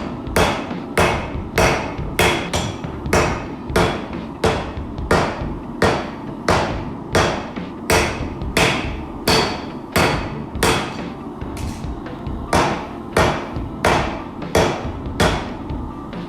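Hand hammer striking hot coil-spring steel on an anvil in a steady rhythm, about three blows every two seconds, each with a brief metallic ring, over a steady low rumble.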